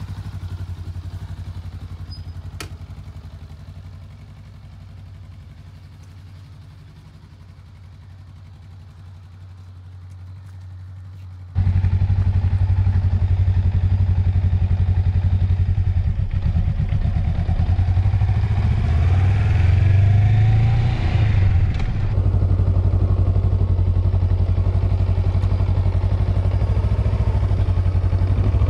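Motorcycle engine idling steadily, heard at first from a few metres away and then, from about twelve seconds in, much louder and close up from a camera mounted on the bike.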